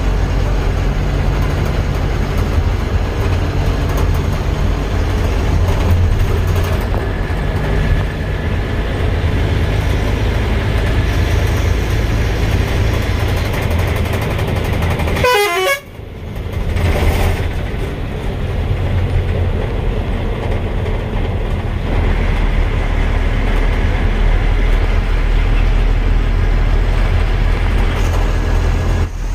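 A vehicle driving, its engine and road noise running steadily, with a horn sounded along the way. About halfway through the sound briefly drops out.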